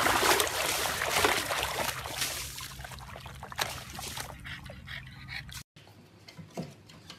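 Water splashing and sloshing in a shallow plastic paddling pool as a pug paddles about in it, loudest in the first couple of seconds and gradually easing. It cuts off abruptly about five and a half seconds in.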